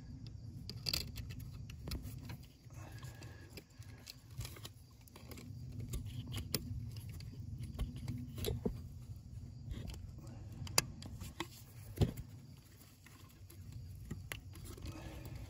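A small coil spring and its plastic retainer being worked back into a diesel fuel filter bowl by hand: scattered light clicks and scrapes, with two sharper clicks late on, over a low rumble of fingers handling close to the microphone.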